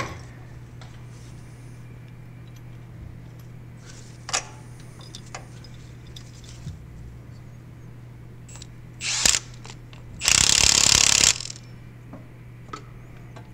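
Tools at work on the bolts of a truck's front differential: a sharp click about four seconds in, then a power tool run in a short burst and a longer burst of about a second near the end, over a steady low shop hum.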